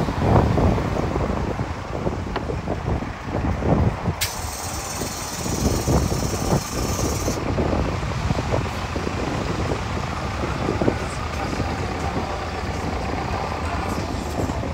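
Street traffic with the low rumble of a heavy vehicle's engine. A loud hiss starts suddenly about four seconds in and cuts off about three seconds later.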